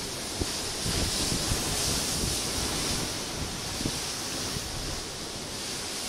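Steady rush of ocean surf, with wind buffeting the microphone in uneven low gusts.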